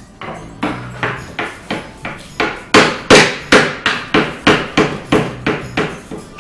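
A spoon banged over and over on a plastic toy kitchen: a steady run of sharp knocks, about three a second, loudest about halfway through.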